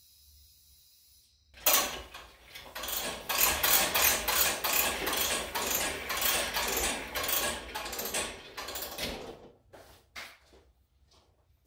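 Ceiling-mounted retractable air hose reel winding its hose back in, a rapid ratcheting clatter that starts suddenly and runs for about eight seconds. A few soft footsteps follow near the end.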